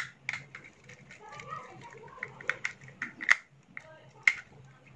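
Irregular small clicks and taps of hand tools and wire at a USB socket module's terminal as a wire is connected to the L terminal, with the sharpest clicks about three and four seconds in. A faint steady hum lies underneath.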